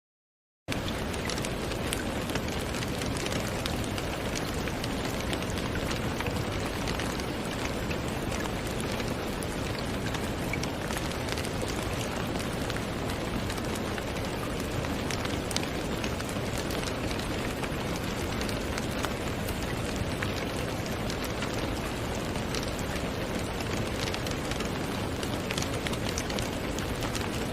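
Steady rain falling, a dense even hiss speckled with individual drop ticks, which starts abruptly just under a second in.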